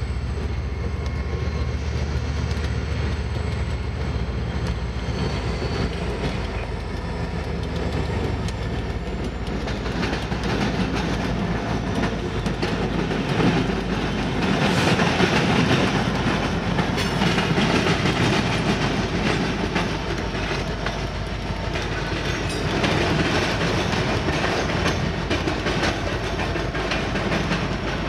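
A freight train passing, led by two Canadian Pacific diesel locomotives whose engines rumble by, loudest about halfway through. Behind them come freight cars, their wheels clicking over the rail joints.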